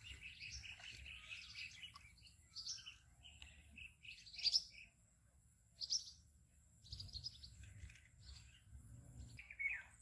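Small birds chirping and calling in short scattered notes, with a quick run of chirps in the first couple of seconds.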